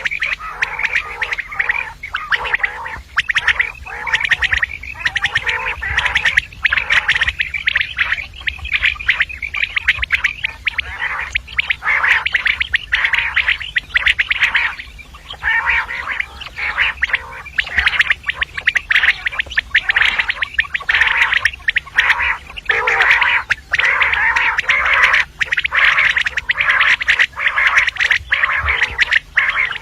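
Common quail calling: many short, high calls in quick succession with hardly a pause.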